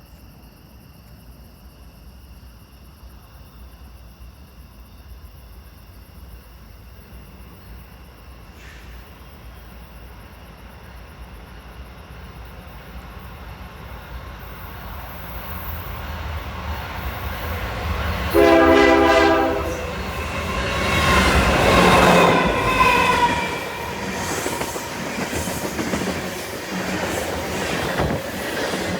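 CN freight train approaching at speed, its low rumble growing steadily louder. The locomotive horn blows a short blast about two-thirds of the way in, and then the train rushes past with wheels clattering over the rails.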